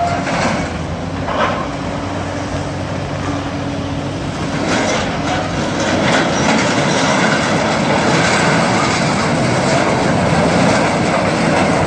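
Hydraulic demolition excavator (Caterpillar 323D) running under load as its grab tears and drags sheet-metal roofing and steel debris, with crashing, scraping and clanking metal over the engine.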